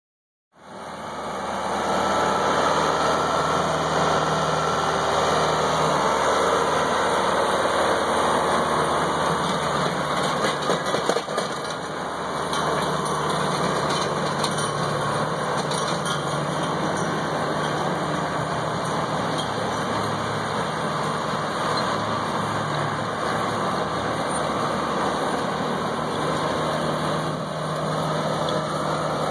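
Tractor engine running steadily under load while driving a PTO-powered Harley power rake through dirt. A brief cluster of sharp clicks and knocks comes about ten to twelve seconds in.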